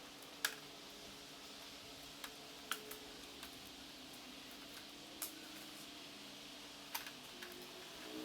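Sharp plastic clicks and snaps, about eight spread irregularly over several seconds, as the push-in retaining clips of a Toyota Tacoma grille's chrome surround ring are pushed through and the plastic grille parts are handled. A faint steady hum runs underneath.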